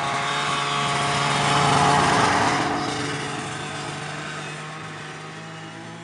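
Snowmobile engine passing close by, growing louder to a peak about two seconds in, then fading steadily as it drives away.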